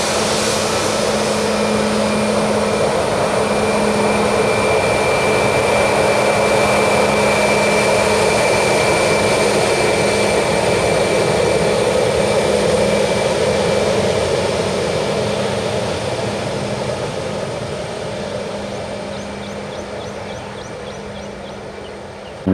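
Jet engines of a Southwest Boeing 737 running as the airliner rolls along the runway: a steady rush of engine noise with a high whine over it. The noise fades over the last several seconds as the jet moves away.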